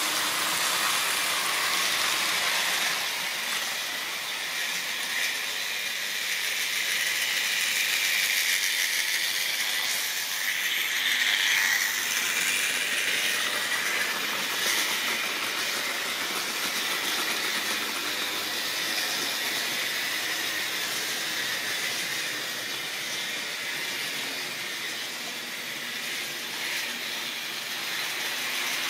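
Model railway trains running on the track: the small electric motors whirring and the wheels rattling over the rails, in a steady hiss-like run that swells briefly about eleven seconds in.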